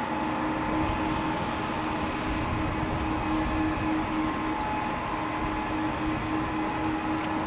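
Boeing 777-200ER's twin turbofan engines running at taxi power as the airliner rolls slowly: a steady whine over an even rushing noise.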